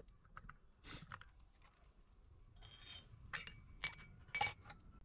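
Glassware clinking: a short scrape, then three light clinks that each ring briefly, in the last two seconds.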